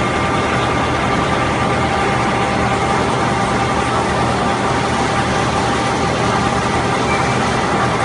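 Aluminium-shell induction melting furnaces running under power: a loud, steady industrial hum and rush with several thin high whining tones held level, while the charge melts.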